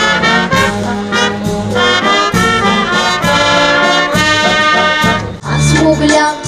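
Military brass band playing a lively dance tune, with trumpets and trombones leading. About five seconds in, it cuts to a different piece of music with a heavier bass.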